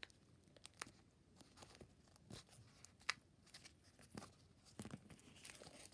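Faint crinkling and scattered soft clicks from a homemade dimple fidget toy wrapped in clear tape, its bubbles being pressed with a thumb.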